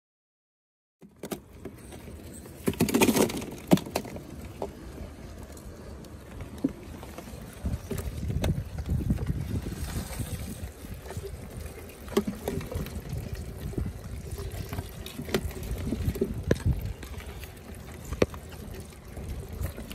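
Live crayfish moving in a plastic cooler: scattered sharp clicks and scrabbling of shells and claws on each other and the cooler walls over a low rumble, starting about a second in after silence.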